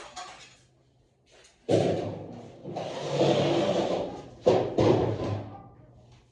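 A few heavy knocks, with a rough scraping noise for about a second and a half between them, as of objects being handled and moved.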